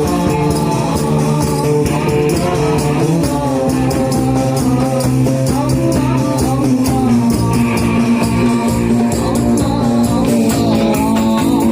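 Sholawat, Islamic devotional music: sung melody over a steady beat of jingling hand percussion, continuous throughout.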